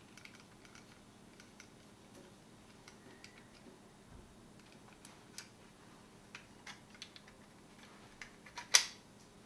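Scattered light clicks and taps of the hard plastic parts of a 1985 Matchbox Robotech Veritech fighter toy and small tools being handled during disassembly, with one sharper click near the end.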